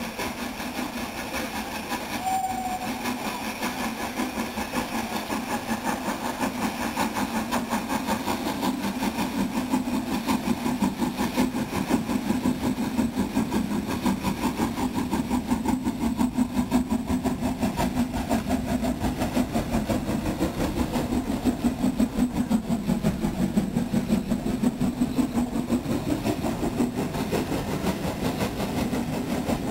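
Steam locomotive working a train of coaches slowly past: a steady, rhythmic exhaust beat with the rumble of the train, growing louder as it approaches.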